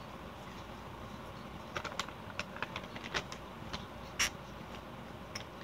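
A person chewing candied bacon close to the microphone: an irregular run of small mouth clicks and smacks, mostly from about two to four and a half seconds in.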